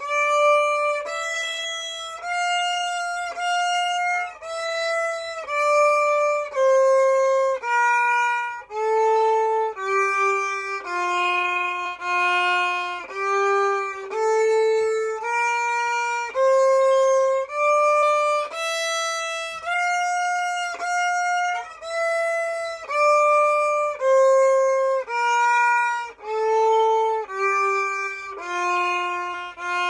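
Solo violin practising a one-octave F major scale, one bowed note about every second, stepping up to the top F and back down to the low F, then up and down again.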